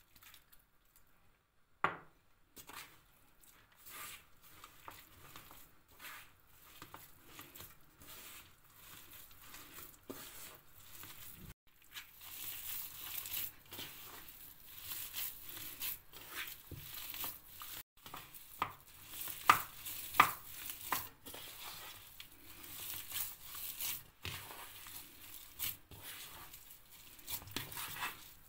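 Hands kneading a damp, crumbly köfte mixture in a metal bowl: irregular rustling, squishing strokes, with fingers scraping and now and then knocking against the bowl. It starts about two seconds in and gets louder and busier in the second half.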